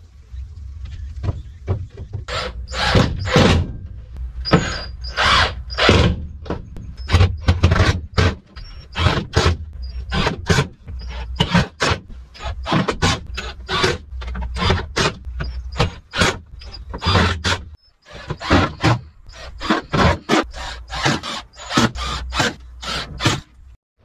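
Tool working wood: a fast, uneven run of rasping strokes, about two to three a second, over a low steady rumble, with a brief break about three quarters of the way through.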